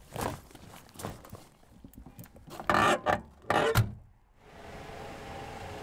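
A heavy bag knocking and scraping as it is shoved onto a car's back seat, then the car door slammed shut with a heavy thump just under four seconds in. A steady hum follows.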